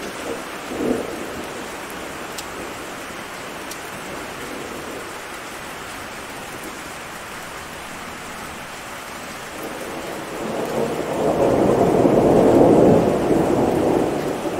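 Steady rain with a long roll of thunder that swells about two-thirds of the way through, peaks and begins to ease near the end.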